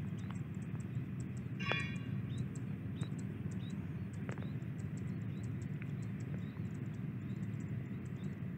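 Steady low rumble from a bridge girder launcher, with faint rapid high-pitched ticking throughout. A short metallic ring sounds about two seconds in, and a single click comes a little after the middle.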